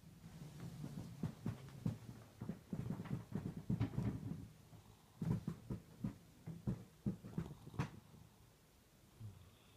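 Domestic cat snoring: a low, rattly snore broken by many short crackles, coming in uneven bouts, with a lull near the end.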